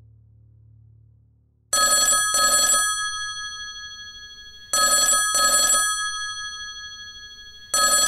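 Telephone ringing in a double-ring pattern: three double rings about three seconds apart, the first starting about a second and a half in.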